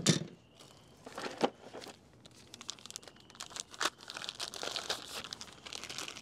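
Clear plastic packaging crinkling and rustling as a bagged part is handled, in irregular crackles. A single sharp knock right at the start is the loudest sound.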